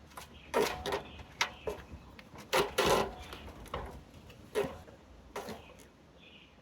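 Black Gorilla Tape being pulled off the roll and wrapped on, as a string of short ripping pulls of uneven length, the longest about three seconds in.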